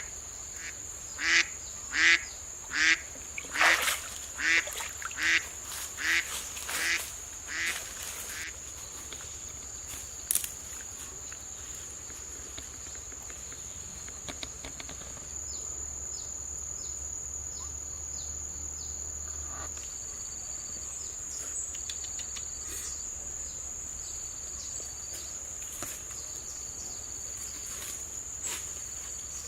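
A duck quacking about ten times in an even series, a little under a second apart, growing fainter and stopping about eight seconds in. A steady high-pitched whine sounds underneath.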